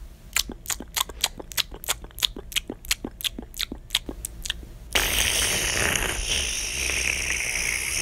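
Eating and drinking sound effects: a run of quick clicks, about four a second, from eating out of a bowl with a spoon, then about three seconds in, a steady hissing slurp of drink sucked up through a straw.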